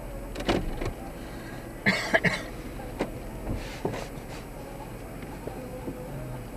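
A person coughing and clearing their throat in short bursts, loudest about two seconds in, inside a car cabin over the low, steady rumble of the idling car.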